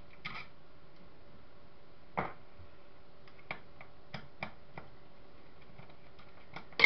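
Scattered light metal clicks and taps from a screwdriver and the metal frame of a CCTV camera's pan housing being worked on and lifted, with a louder knock about two seconds in and a sharp clatter at the very end.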